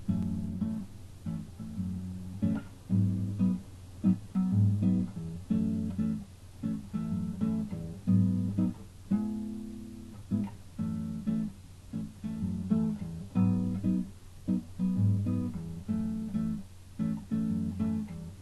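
Acoustic guitar strumming and picking chords, each struck sharply and left to ring and fade.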